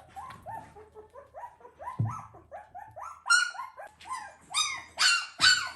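Newborn puppy crying: a quick run of short rising-and-falling squeals, about three a second, growing louder and shriller about halfway through.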